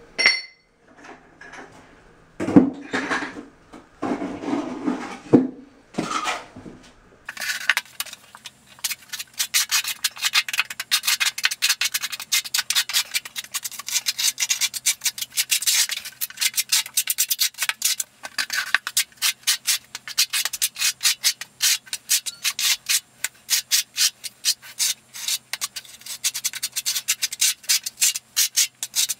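Steel notched trowel scraping thinset mortar across a shower floor in quick, repeated strokes, several a second. It starts after some duller, lower sounds in the first several seconds.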